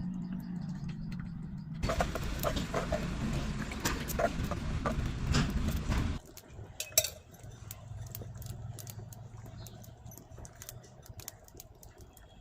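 Metal kitchen utensils and a cooking pot clinking and scraping. The sound is busiest and loudest for about four seconds from about two seconds in, then settles to scattered light clicks.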